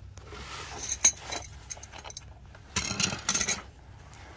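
Metal hand tools clinking and clattering: one sharp clink about a second in, a few lighter clicks, then a short burst of clinks around three seconds in.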